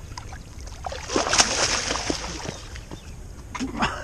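Water splashing and sloshing in the shallows as a released sturgeon thrashes free of the hands and swims off, a burst of about a second and a half starting about a second in.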